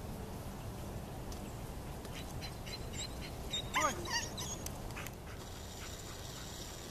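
A dog whines in a quick run of short, high, arching cries about four seconds in, over a steady low outdoor background.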